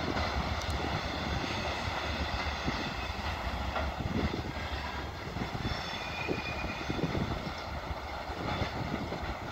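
Empty freight wagons rolling away along the rails with a steady rumble, the train receding into the station.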